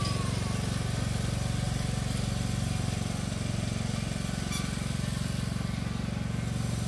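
Small engine of a riding lawn mower running steadily at an even pace while it pulls a loaded wagon.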